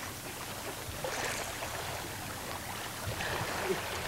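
Lake water lapping and splashing around an angler wading deep, with a hooked black bass splashing at the surface as it is drawn in. There are a few brief splashes, about a second in and again near three seconds.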